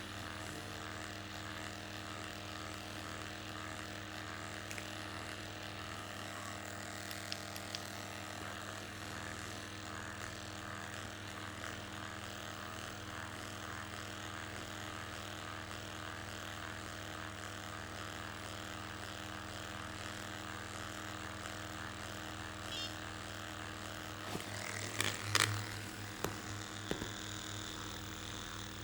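Handheld vibrating massage device running with a steady motor hum while it is held against the jaw muscles. A short cluster of clicks and knocks comes near the end.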